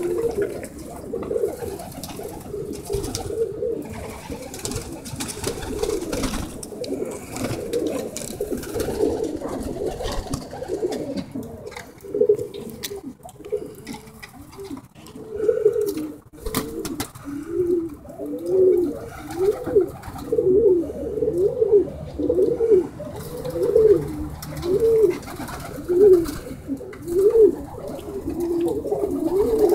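Tippler pigeons cooing: several birds' coos overlap at first, then past the halfway point one coo repeats steadily about once a second. A couple of sharp knocks come near the middle.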